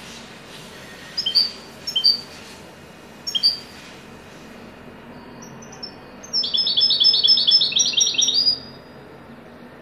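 European goldfinch singing in the Maghrebi 'haddadi' style: three short, sharp notes spaced about a second apart, then near the end a loud, rapid run of repeated notes lasting about two seconds.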